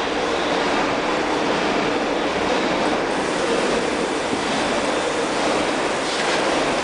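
Steady mechanical drone of workshop machinery running, with a constant low hum under an even rushing noise.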